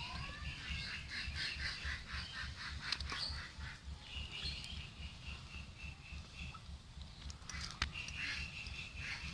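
Birds chirping: a quick run of high chirps, then a steady trill that comes back near the end, with a couple of sharp clicks.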